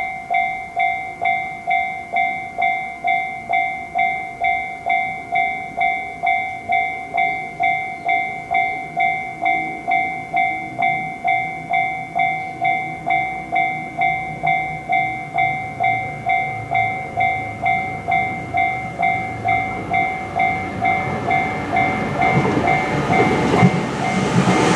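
Japanese level-crossing warning bell ringing its steady "kan-kan" about twice a second. Near the end a train rumbles in under it and grows loud.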